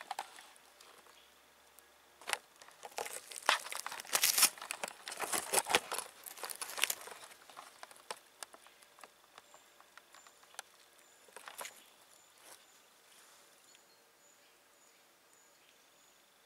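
Dry fallen leaves crackling and rustling in a dense run of sharp crackles for several seconds. After that come scattered lighter crackles that fade out.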